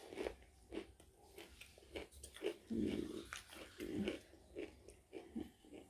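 Chewing crunchy pita chips: irregular crisp crunches and wet mouth sounds, a few every second.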